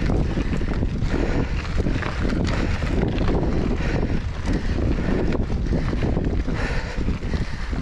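Wind buffeting the microphone of a camera on a moving mountain bike, a loud, steady rush, with occasional sharp rattles from the bike on a rough trail.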